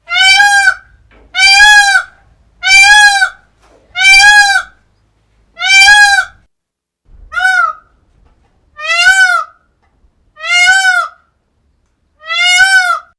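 Indian peafowl (peacock) calling: nine loud calls about a second and a half apart, each rising and then falling in pitch.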